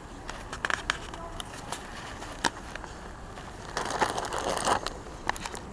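Footsteps and handling noise from a handheld camcorder carried by someone walking on paving: scattered sharp clicks and knocks, with a denser, noisier stretch about four seconds in.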